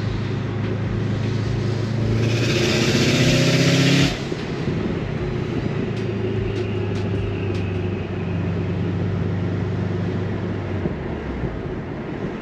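2005 Subaru Legacy GT wagon's turbocharged 2.5-litre flat-four, heard from inside the cabin, accelerating: the engine note rises in pitch and grows louder with a hiss over it for a few seconds. It cuts off abruptly about four seconds in as the throttle is lifted, then the car cruises with a steady engine drone and road noise.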